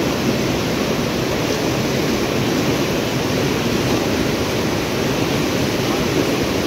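Fast-flowing river water rushing, a steady even rush with no breaks.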